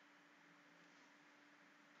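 Near silence: room tone with a faint steady hiss and a low hum.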